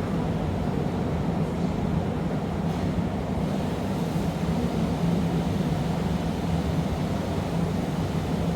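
Steady low roar of gas burners in a glassblowing workshop, unchanging throughout.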